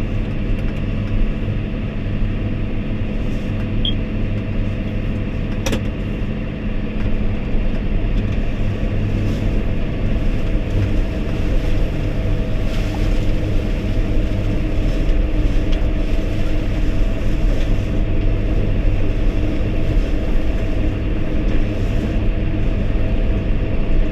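John Deere 6110R tractor's diesel engine running steadily under load while driving a snow blower through frozen snow, heard from inside the cab. A single sharp click about six seconds in.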